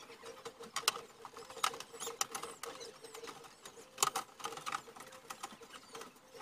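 Scissors cutting through a plastic water jug: irregular crisp snips and crackles of the stiff plastic, with louder snaps about a second in and about four seconds in.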